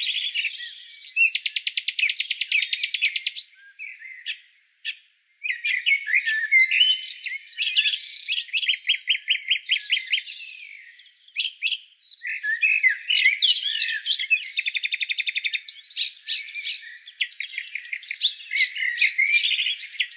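Songbirds singing: a busy run of chirps and fast trills of rapidly repeated notes, at times two songs at different pitches at once. The sound is thin, with no low end at all.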